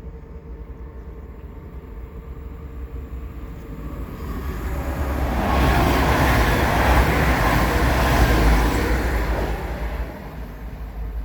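A train passing by: a low rumbling noise that grows louder from about four seconds in, is loudest in the middle, and dies away near the end.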